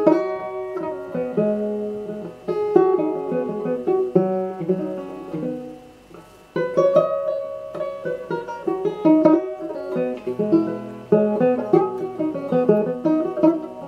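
Tenor banjo played solo, plucked notes and chords ringing and decaying one after another. The playing dies down a little before halfway, then comes back in with a sharp strike.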